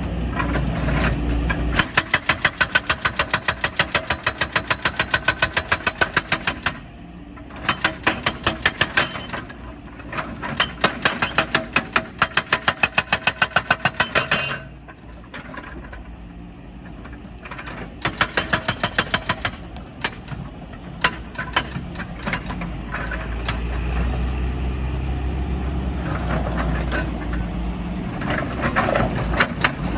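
Heavy diesel machinery running, broken by several bursts of rapid, evenly spaced metallic knocking. The bursts last a few seconds each and are spread through the first twenty seconds. A steady engine rumble fills the gaps between them and carries on through the last third.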